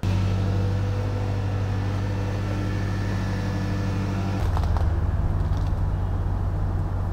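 Toyota HiAce van's engine running steadily. About four seconds in, its note changes and grows lower and heavier.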